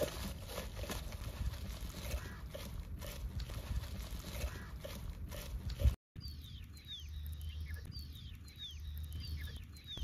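Knife scoring a raw, marinated whole chicken: small wet handling sounds and light clicks. After an edit about six seconds in, a bird calls repeatedly with short falling chirps, over a low steady hum.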